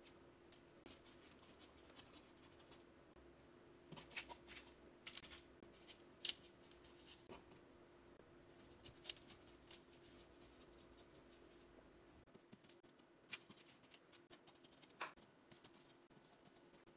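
Near silence with faint, scattered scratches and light taps of fingertips pressing and shaping cookie dough on parchment paper over a metal baking sheet, above a faint steady hum of room tone.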